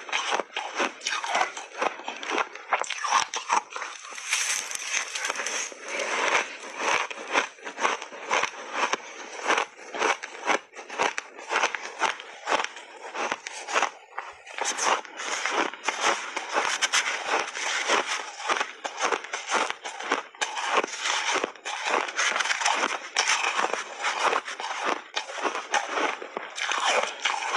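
Refrozen shaved ice crunching as it is chewed in big mouthfuls and scraped up with a spoon: a dense, continuous run of crackly crunches, with a short lull about halfway through.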